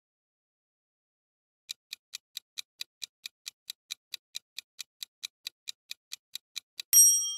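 Quiz countdown timer sound effect: clock-like ticking at about four and a half ticks a second, starting nearly two seconds in, then a bright ringing chime near the end as the time runs out.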